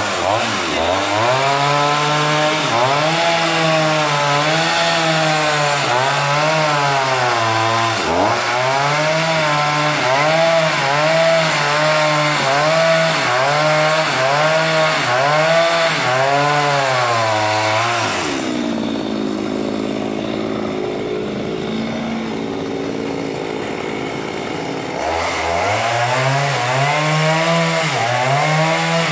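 Two-stroke chainsaw ripping lengthwise along the grain of a large log, its engine pitch dipping and recovering about once a second as it bogs under load. About two-thirds of the way through, it runs for several seconds at a steady, higher pitch without the cutting noise, then goes back into the cut.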